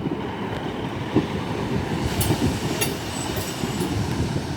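Coupled Class 150 and Class 156 diesel multiple units running in, a steady low rumble with a few sharp clicks from the wheels on the track.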